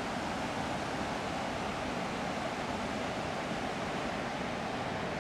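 Steady, even rushing noise with no breaks or separate events.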